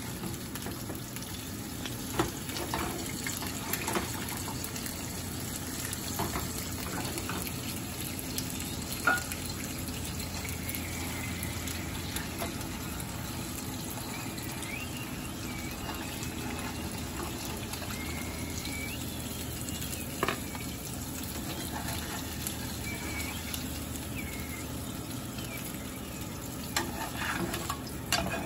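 Eggs frying in oil in a nonstick pan, a steady sizzle, with a metal spatula scraping and tapping the pan now and then.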